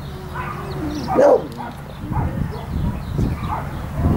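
A dog gives a short faint whine, then barks once about a second in.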